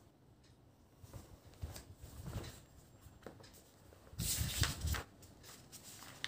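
Textbook pages being turned and rustled by hand, with a louder rustle of paper about four seconds in.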